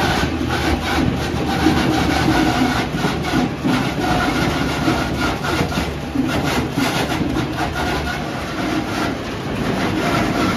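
Cider mill's apple grinder and its belt drive running steadily with a rough, clattering noise, grinding apples into pulp that feeds down the chute.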